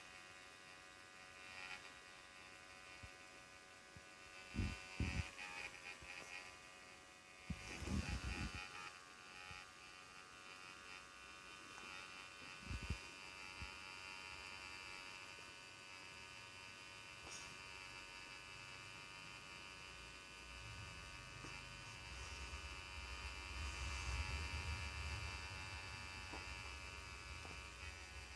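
Portable nebulizer running with a faint, steady electric buzz while it mists Ventolin medicine, with a few brief soft knocks and a low rumble in the second half.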